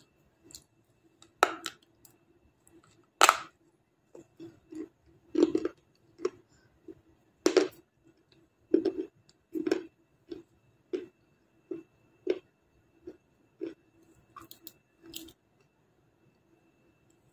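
Close-up chewing of crunchy baked edible clay ('black star' clay): irregular crunches about once or twice a second, with a few sharp, louder cracks about a second and a half, three seconds and seven and a half seconds in.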